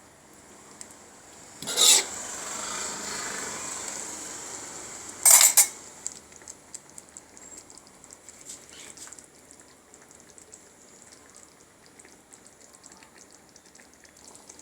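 A cooking utensil scraping against a pot of simmering sambal goreng: two short loud scrapes, about two and five seconds in, with a hiss between them that fades. After that come faint light clicks of stirring.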